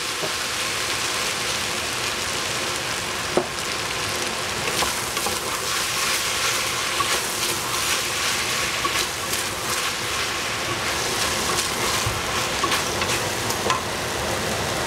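Julienned potato and celery sizzling in a stainless steel pot while being stir-fried with a wooden spatula: a steady sizzle with frequent short knocks and scrapes of the spatula against the pot, one louder knock about three seconds in.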